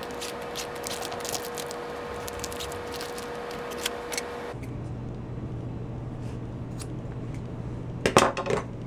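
Paracord being handled and pulled along a ruler, with soft rustles and small ticks, then scissors cutting the cord with a short, loud snip near the end.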